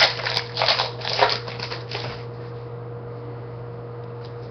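A trading card pack's wrapper being torn open and crinkled by hand, a string of short crackles over the first two seconds, followed by a quiet steady hum.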